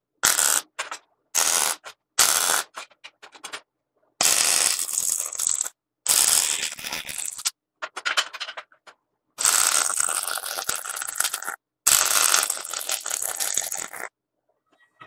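MIG welding arc crackling in about ten separate bursts that start and stop abruptly: short tack welds at first, then longer runs of a second and a half to two seconds.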